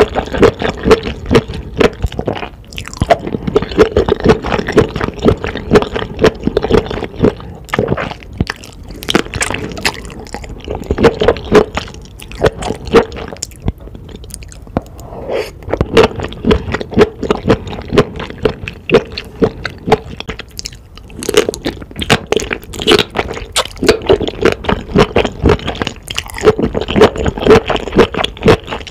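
Close-miked eating: wet squishing, slurping and chewing of enoki mushrooms coated in thick black bean sauce, with many quick wet mouth smacks and clicks.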